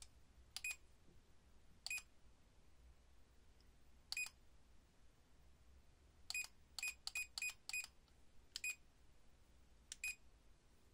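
Green 4D laser level beeping: about ten short, high beeps, a few of them doubled and five in a quick run in the middle, as its laser lines are switched between modes and then off.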